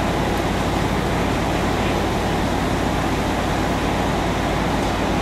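Steady, loud fireground roar: fire engines' diesel pumps running to supply hose lines, mixed with water streams and the burning blaze, with no distinct events.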